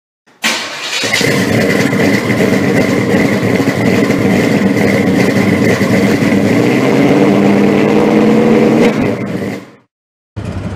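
A car engine starting with a sudden burst, then running loud and steady. It gets a little louder toward the end and cuts off abruptly.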